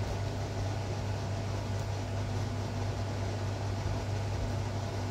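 Steady low hum with an even hiss and no distinct sounds: background room noise.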